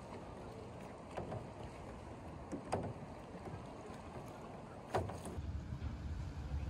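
Kayak paddle blades dipping into sea water, three splashing strokes over a steady wash of water and wind. Near the end a low steady rumble takes over.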